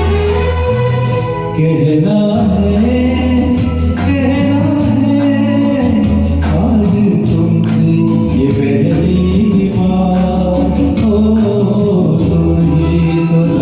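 Karaoke backing track of a Hindi film song playing its instrumental intro: a pulsing bass line under a gliding melody with wordless, vocal-like tones.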